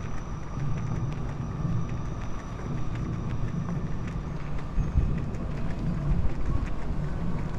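City street ambience: a steady low rumble of traffic, with faint footsteps ticking on the pavement.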